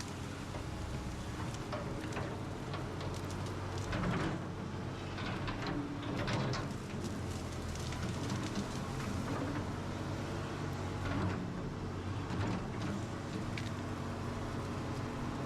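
Excavator's diesel engine running steadily, with irregular knocks and scrapes from the digging work.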